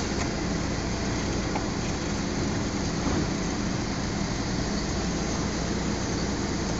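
Toyota forklift's engine running steadily as the truck maneuvers.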